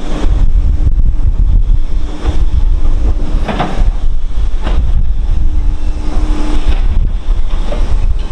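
Heavy wind buffeting the microphone over the steady hum of construction machinery engines. There are two short knocks, about three and a half and nearly five seconds in.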